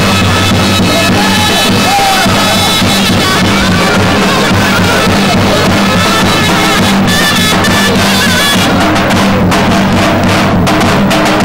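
Loud Turkish folk dance music: a high wavering melody over a low steady drone, with a steady drum beat.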